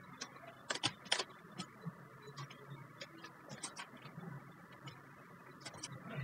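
Faint, irregular clicks of computer keyboard keys being tapped while code is edited, a dozen or so scattered keystrokes over a light steady hiss.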